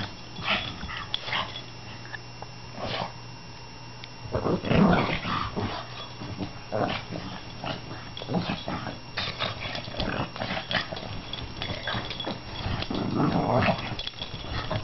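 Pug play-growling during rough play, in irregular bursts, loudest about five seconds in and again near the end.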